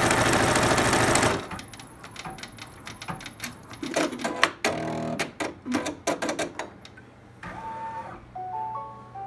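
Brother Persona embroidery machine stitching at speed, which stops abruptly about a second and a half in. Scattered clicks and knocks follow, and near the end a short melody of bell-like notes begins.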